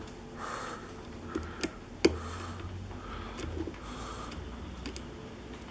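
Short hook pick working the pins of a pin-tumbler lock under tension: a few small sharp metallic clicks, the loudest about two seconds in, as pins are probed and set. Soft nasal breathing comes and goes between the clicks.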